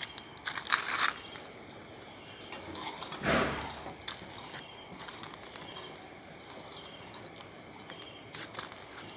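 Antique kerosene hot-air engine fan running, a soft steady mechanical noise with a few light clicks, and a louder scuff about three seconds in.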